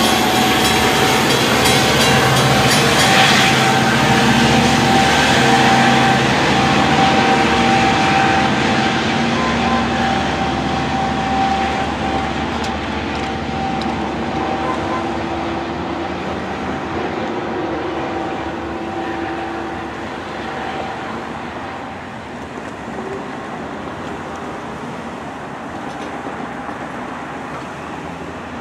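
Long Island Rail Road train running on the line and moving away, its sound fading slowly and steadily.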